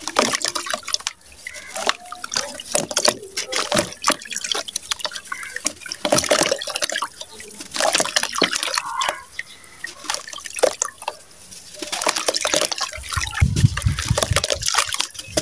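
Dry sand-cement crumbled by hand, crunching, with grit and small lumps pouring and splashing into a tub of water in irregular bursts. A low rumble comes in near the end.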